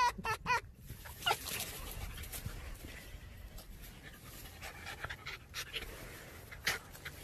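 Red fox giving the last few short, stuttering pitched calls of its 'laugh' in the first second. Then comes a quieter run of soft breathy sounds with a few short clicks from a porcupine being petted.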